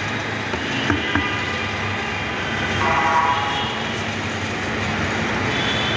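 Steady din of busy street traffic, with a short vehicle horn about three seconds in and a couple of light knocks about a second in.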